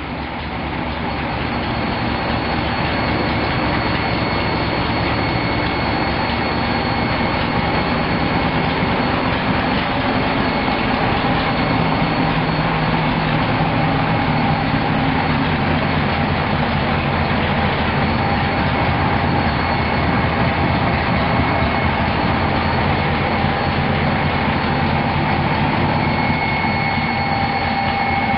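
508-cubic-inch big-block Mopar V8 with FAST XFI electronic fuel injection and F&B six-pack throttle bodies, running steadily. It swells in over the first couple of seconds and then holds a constant level, with a steady whine over it.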